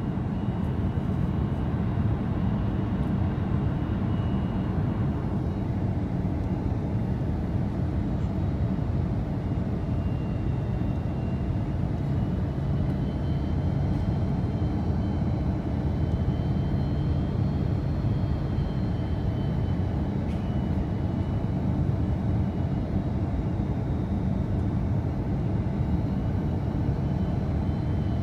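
Airbus A330 cabin noise during final approach: a steady low rumble of engines and airflow heard inside the passenger cabin, with a faint high whine that drifts slightly in pitch.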